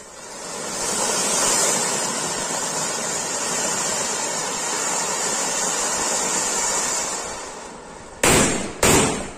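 Pair of Ganga Jamuna-type fountain fireworks (anar) spraying sparks with a steady rushing hiss that builds over the first second, holds, then fades. Near the end, two loud bangs about half a second apart.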